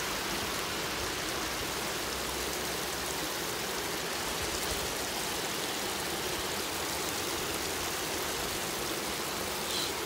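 A small, shallow stream flowing over a pebble bed: a steady sound of running water.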